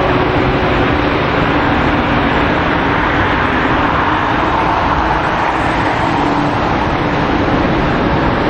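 Airbus A321neo's twin Pratt & Whitney geared turbofan engines at takeoff thrust during the takeoff roll: a loud, steady roar with a faint droning tone underneath.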